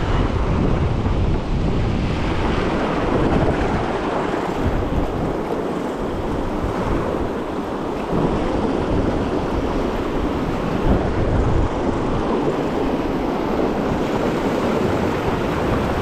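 Steady rush of river water running through a riffle, with wind buffeting the microphone in uneven low gusts.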